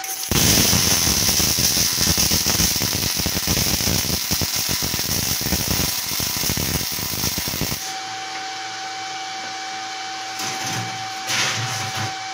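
MIG/MAG welding arc on 3.3 mm steel, with 0.9 mm wire at about 130 A and 18.3 V in short-circuit transfer, crackling and sizzling steadily for about seven and a half seconds and then cutting off suddenly. After it a steady hum remains, with a few faint knocks near the end.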